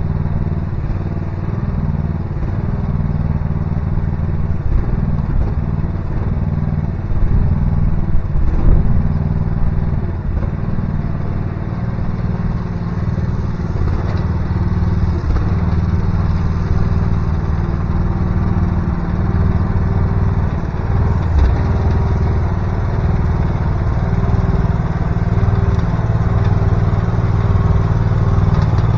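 VC13C mini excavator's engine running steadily, with a brief louder stretch about eight seconds in.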